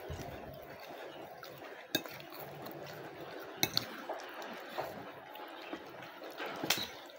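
Metal spoon scraping and clinking against a plate of rujak in sauce, with a handful of sharp clinks, the loudest near the end.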